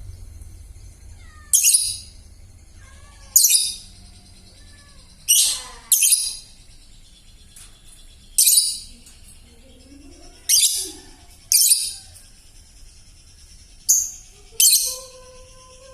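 Young lovebird giving short, harsh, raspy chirps, about nine of them, repeated every second or two. Its voice is still hoarse and cracked, typical of a newly weaned bird whose song has not yet settled.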